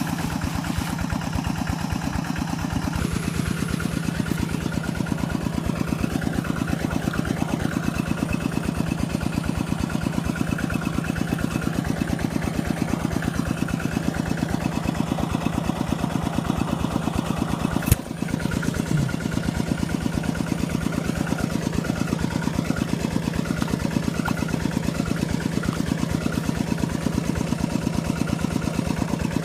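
A small engine running steadily with a rapid, even firing beat and a steady low hum. There is one sharp click about eighteen seconds in.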